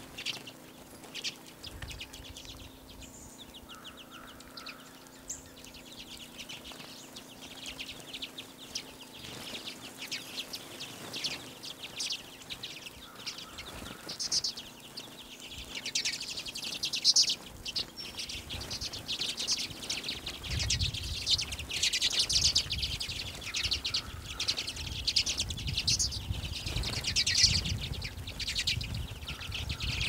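A flock of redpolls twittering: many short, rapid, high chattering calls that come thicker and louder in the second half, with a low rumble joining in about two-thirds of the way through.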